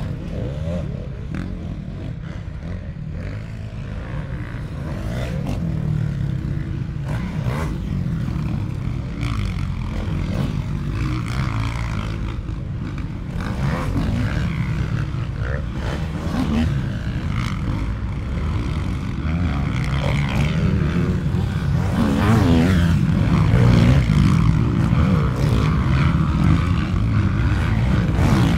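Motocross dirt bike engines revving on the track, the engine note rising and falling as riders accelerate and shift. Louder in the last third as a bike comes close.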